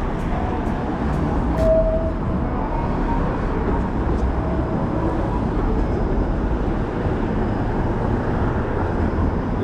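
Steady city street traffic noise: the rumble and hiss of passing vehicles, with a short squeal about two seconds in.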